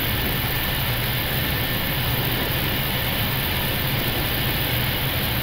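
Steady flight-deck noise of an Airbus A321neo on short final approach, with gear down and full flaps: an even rush of airflow over a low engine hum, with no distinct events.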